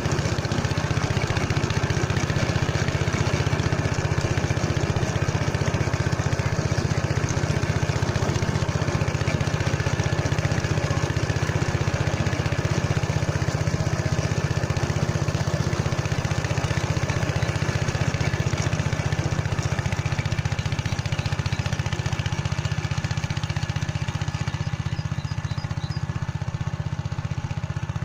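Motor Sich walk-behind tractor's engine running steadily under load while its rotary tiller works the soil.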